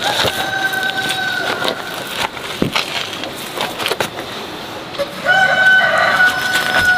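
A rooster crowing twice: one long crow at the start and a louder one beginning about five seconds in. Scattered light knocks and scrapes sound underneath.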